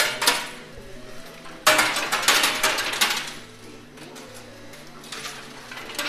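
Metal coins clattering in a coin pusher machine. A short clink comes at the start, then about a second and a half in a dense jingling spill of many coins lasts over a second, and a smaller clatter follows near the end.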